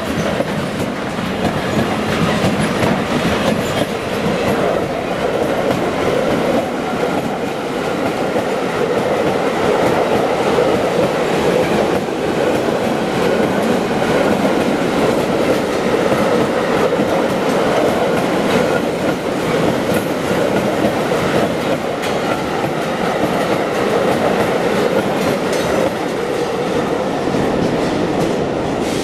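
Freight train wagons rolling steadily past, wheels clacking over the rail joints.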